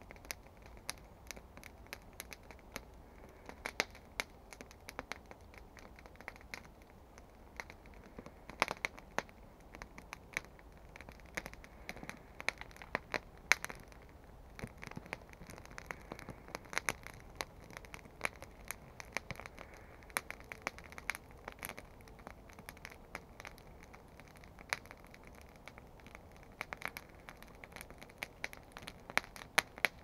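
Wood campfire burning and crackling, with frequent irregular sharp pops and a few louder snaps.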